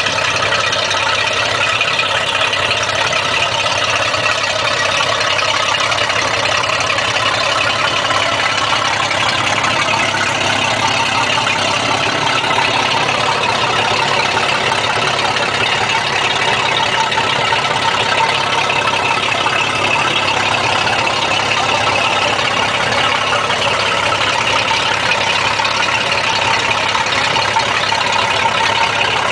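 Maxum boat's sterndrive engine running steadily out of the water, fed by a garden hose at the drive, with no change in speed.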